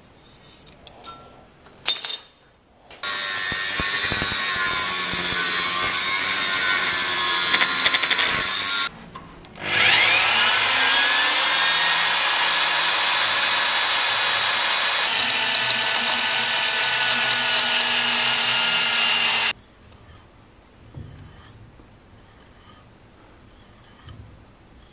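Electric hand drill boring into steel, running in two long stretches: the first about six seconds, then after a short pause it spins up with a rising whine and runs about ten seconds before stopping abruptly.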